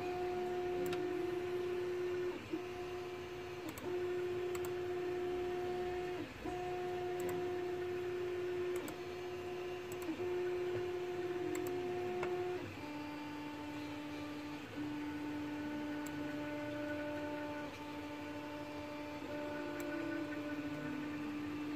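Creality CR-10S 3D printer's stepper motors whining in steady pitched tones, broken into short segments as the print head makes one move after another. The pitch drops about halfway through and holds lower to the end.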